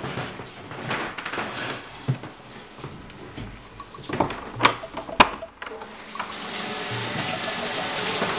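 A door knob and latch clicking twice as a door is opened, then a shower running with a steady spray of water.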